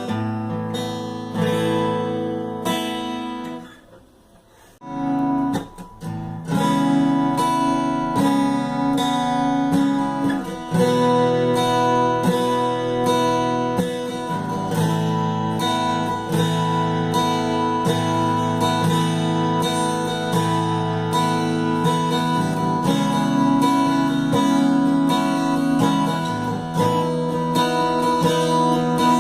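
Acoustic guitar (violão) played on old strings, a mix of picked notes and strummed chords, with a short pause about four seconds in.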